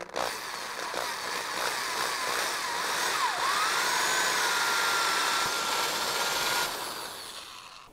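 Power drill boring through the side of a black plastic 5-gallon bucket to make the overflow hole. The motor runs with a whine that wavers up and down at first, then holds steady as the bit cuts the plastic, and winds down near the end.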